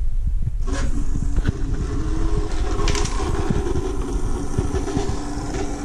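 Small 12-volt water pump switching on about a second in and running with a steady hum, pushing water through a battery pack's cooling pipes. Air still in the lines makes the pump struggle.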